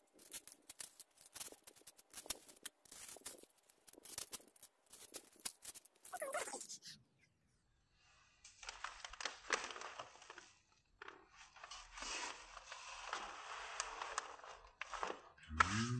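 Plastic spice-sachet packaging and wrapping paper crinkling and rustling, with light clicks, as a bouquet is handled. A short pause about halfway, then a denser, steady sound takes over.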